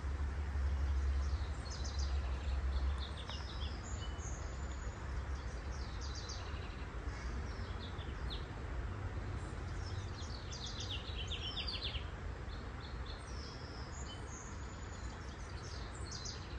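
Small birds chirping and trilling in short bursts again and again, over a steady low rumble that is loudest in the first few seconds.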